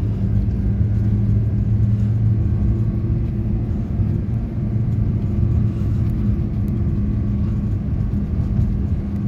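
Vehicle engine and road rumble heard from inside the cabin while driving: a steady low hum with a constant droning tone.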